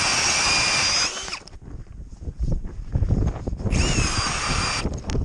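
Ryobi cordless drill driving an ice auger into the ice, its motor whining steadily in two bursts: one ending about a second and a half in, another starting near the four-second mark and lasting about a second. Low rough grinding noise fills the gap between them.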